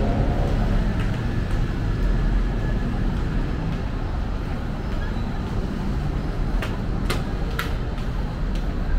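Busy city road traffic: a steady low rumble of passing vehicles, with three short sharp clicks about half a second apart, roughly two-thirds of the way in.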